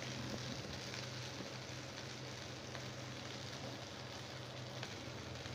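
Potato cutlets (aloo tikki) shallow-frying in hot oil in a pan: a steady sizzle with small crackles.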